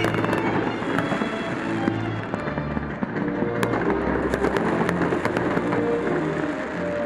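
Fireworks going off in a dense crackle, with sharp cracks scattered through it that come more often in the second half, over music with held notes.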